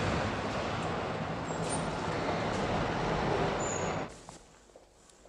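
Steady vehicle and traffic noise with a low drone, which cuts off suddenly about four seconds in, leaving faint room tone.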